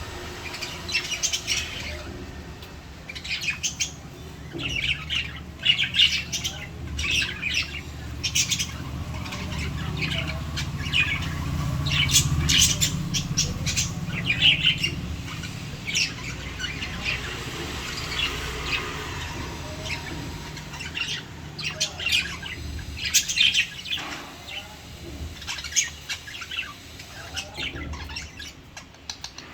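Lovebirds chirping: many short, sharp, high calls in quick succession, over a steady low rumble that swells in the middle.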